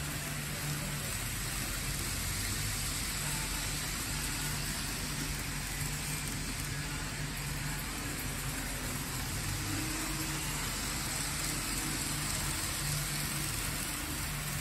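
N scale model trains, a Thalys and an ICE 3, running on layout track: a steady whir of motors and wheels over a constant hiss.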